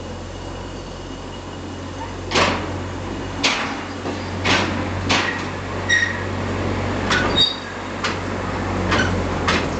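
Replica Lartigue monorail locomotive's diesel engine running steadily while metal clanks and brief squeals ring out from its wheels and the turntable track, about ten times at irregular intervals from about two seconds in.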